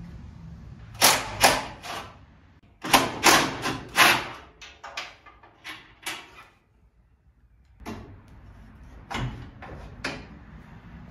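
Irregular knocks and clunks of a car radiator and shroud being handled and set into the radiator support. The knocks come in two groups: a busy run in the first four seconds, lighter ticks after it, then two more knocks near the end.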